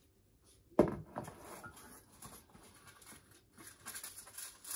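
A glass measuring cup set down on a kitchen counter with one sharp knock, followed by light clicks and rustling as a box of aluminium foil is picked up and handled.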